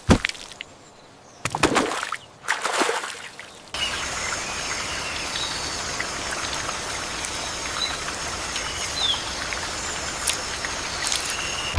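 A few handling knocks and rustles, then steady running water that starts about four seconds in and goes on evenly, with a few faint bird chirps over it, while mud is washed off the toy cars.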